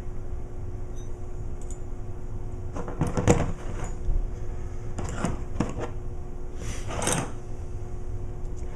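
Metal parts of a boat's raw water pump being handled and fitted back together: three short groups of clinks and knocks, a few seconds apart.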